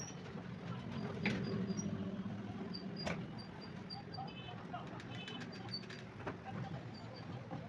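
Small birds chirping in short, high notes over a steady low background hum, with a few sharp clicks from hand-tool work on glass at the bench.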